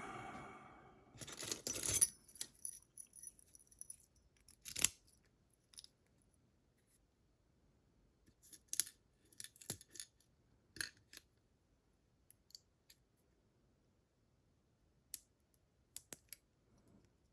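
Small metal parts of a DORMA DC500 lock cylinder clicking and clinking as it is taken apart by hand. The clicks come irregularly, the loudest about two and five seconds in, with scattered fainter ones after that.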